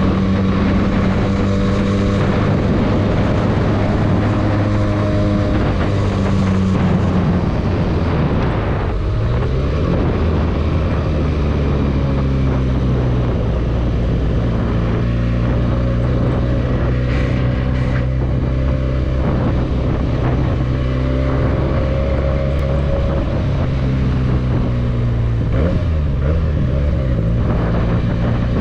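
Benelli 302S motorcycle's 300 cc parallel-twin engine running while riding. The engine note drops about a third of the way in, picks up again, then holds fairly steady with brief dips.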